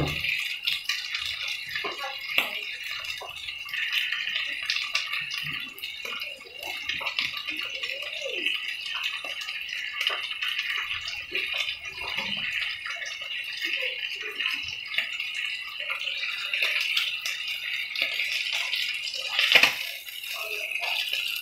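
Striploin steaks sizzling in hot oil in a frying pan, a steady hiss full of small crackling pops. Near the end, a fork clatters against the pan as a steak is turned, and the sizzle flares up.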